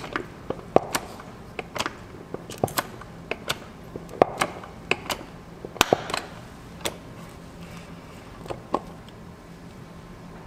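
Irregular sharp metal clicks and knocks from a grease-bucket bearing packer being worked by hand to pack a trailer wheel bearing with grease. They come thick for most of the first seven seconds, then only a few more.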